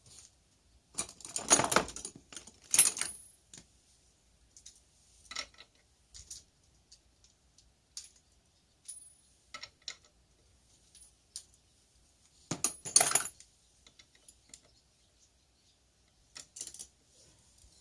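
Metal tools and small parts clinking and rattling as they are handled, in two bursts of clatter, one about a second in and one near thirteen seconds, with scattered single clicks and taps between.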